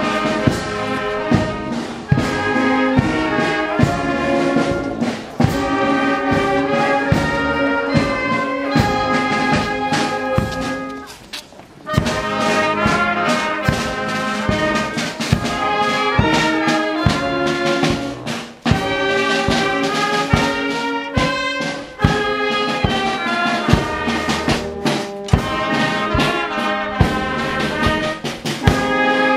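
Marching brass band playing a march: trumpets, saxophones and a sousaphone over a steady drum beat. The playing breaks off briefly about eleven seconds in, then starts up again.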